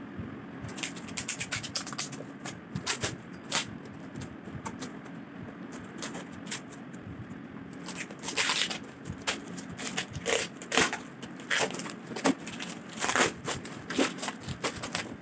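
Packaging being handled and opened during a tripod unboxing: rapid crinkling, scraping and clicking, louder and busier from about halfway through.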